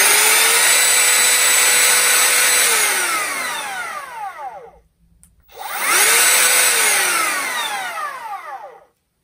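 Greenworks G24RO 24 V cordless brushless trim router running free with no cut: a high whine holds steady for about two seconds, then falls away to silence as the motor winds down after switch-off. It spins up again about halfway through and winds down again near the end.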